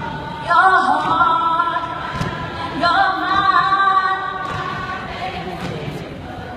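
A group of women singing or chanting together in unison, unaccompanied, in two loud phrases: one starting about half a second in, the next about three seconds in.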